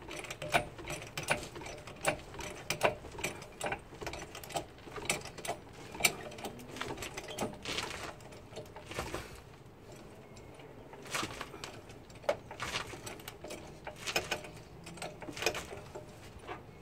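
Hydraulic trolley floor jack being pumped by its long steel handle: a run of irregular metallic clicks and clanks as the van is raised, with a short lull a little past halfway.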